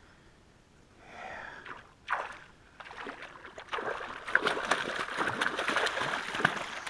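A hooked cutthroat trout thrashing at the water's surface, splashing. It starts with a single splash about two seconds in and becomes a loud, continuous run of splashing over the last three seconds.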